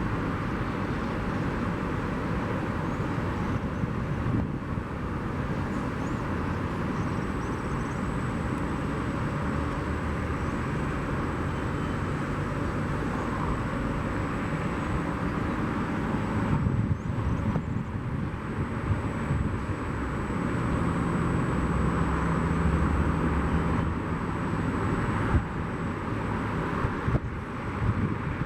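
Jet engines of a Boeing 767 freighter heard at a distance: a steady rumble with a thin high whine, the rumble growing louder in the second half.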